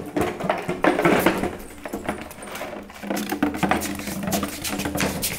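Empty plastic bottle clattering and crackling against a stone floor as a Labrador puppy bites and shoves it: a rapid, uneven run of small clicks and scrapes, loudest about a second in.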